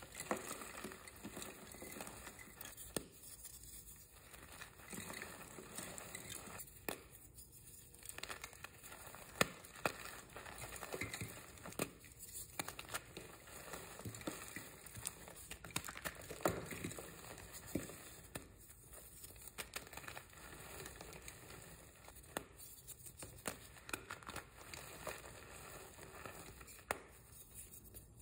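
Reformed white gym chalk being crushed and crumbled in the hands, a continuous string of soft crunches and crackles as the pressed blocks break apart into powder, with sharper cracks now and then.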